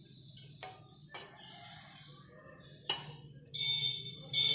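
A steel spoon scraping and clinking against a non-stick pan while melted jaggery syrup is poured through a plastic strainer, with three sharp clinks in the first few seconds. Near the end come two short, louder shrill sounds.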